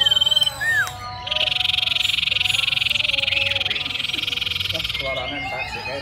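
Common iora (cipow) singing: a brief rising-and-falling whistle, then a long rapid rattling trill of about four seconds that stops abruptly.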